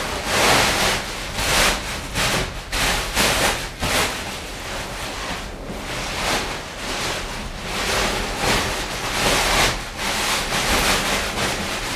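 Rustling of a disposable PPE coverall and plastic shoe covers as the legs of the suit are pulled on, coming in repeated irregular swells.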